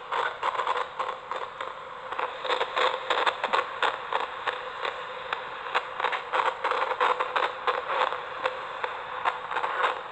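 Steady crackling static, dense with quick irregular clicks, over a faint steady hum.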